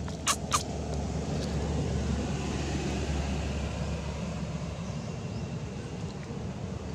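Low rumble of a distant engine, swelling for a few seconds and easing off, with two sharp clicks close together near the start.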